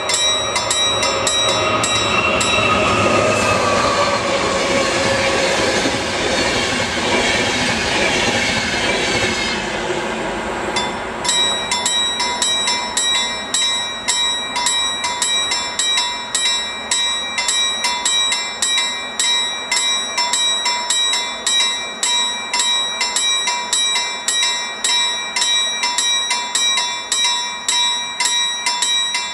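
A level crossing's warning bell rings in rapid, evenly spaced strokes while an InterCity train hauled by an Sr1 electric locomotive passes. The train's noise swells with falling tones, then fades out about eleven seconds in. The bell keeps ringing after the train has gone, because a faulty middle-section induction detector loop keeps the alarm on until the train has cleared every detection section.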